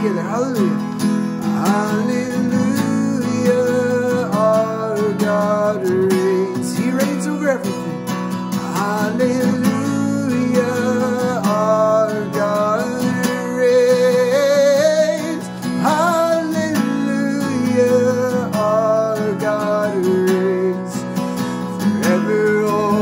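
A man singing a worship song while strumming a Takamine acoustic guitar.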